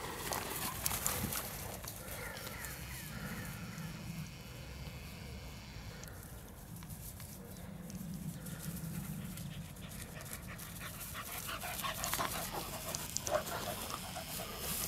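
Two dogs, one a young puppy, playing and chasing over dry grass: the grass rustles and crackles under their paws, and the dogs pant and whimper.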